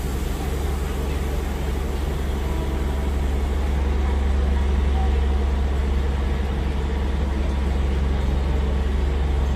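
Narrow-gauge diesel locomotive running steadily just ahead, heard from the first coach as the train rolls along slowly: a deep, even engine hum that grows gradually louder.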